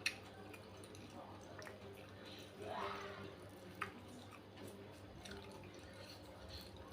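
Quiet eating sounds: a couple of small sharp clicks and, about three seconds in, a short wet mouth sound.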